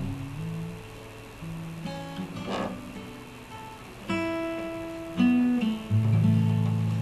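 Acoustic guitar playing the closing bars of a song: single notes and chords picked or strummed, ending on a loud low chord about six seconds in that is left to ring and slowly fade.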